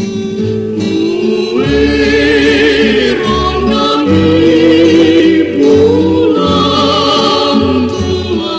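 A vocal group singing a slow Batak folk song in close harmony, with long held notes and vibrato, over guitar and bass accompaniment.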